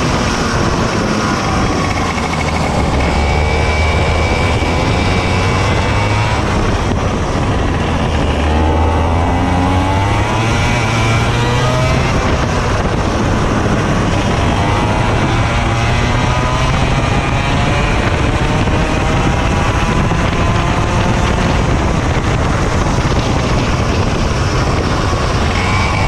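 Racing kart engine heard from the driver's seat, revving up and down through the laps: the pitch climbs on the straights and drops off into the corners, over a steady rush of noise.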